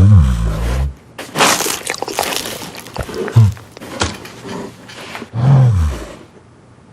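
Bear growling and grunting three times, each call low and falling in pitch, with rustling and clattering noises in between.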